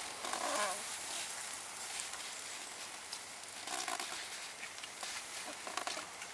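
Charcoal embers under a chicken roasting on a bamboo spit, giving a steady hiss with small crackles. Three short animal calls stand out: one near the start, one in the middle and one near the end.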